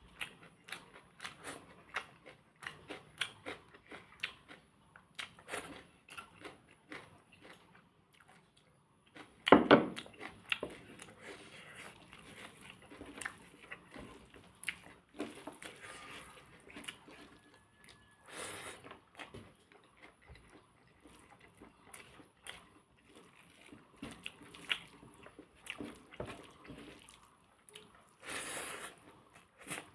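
Close-miked eating: a person chewing and biting food, with many small irregular clicks and smacks. There is a louder knock about nine and a half seconds in.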